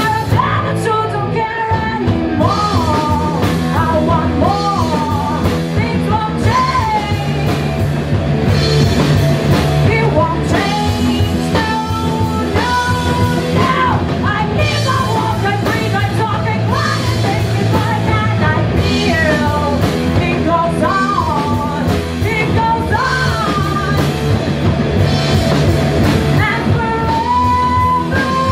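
Live rock band playing: distorted electric guitar, bass guitar and drum kit, with the lead singer singing over them and holding a long note near the end.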